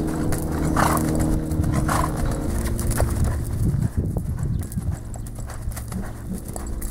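A horse cantering (loping) on arena sand, its hoofbeats a dull, rhythmic drumming on the soft ground. A low steady hum sits underneath for the first couple of seconds.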